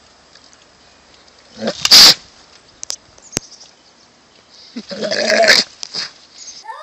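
Goat screaming twice: a short, raspy call about two seconds in and a longer call a few seconds later.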